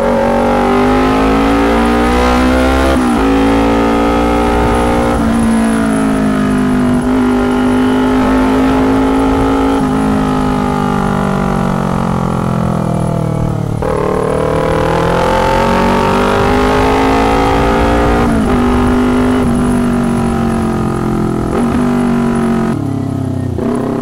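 2019 Kawasaki Ninja 250's parallel-twin engine running through a very loud, tinny aftermarket exhaust, heard from the rider's seat. The revs climb and fall back again and again as the bike accelerates and shifts through the gears.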